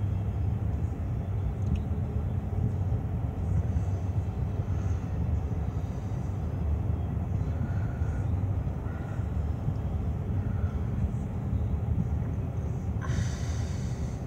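Vehicle cabin noise while driving slowly: a steady low rumble of engine and tyres on the road. A brief hissing rustle comes near the end.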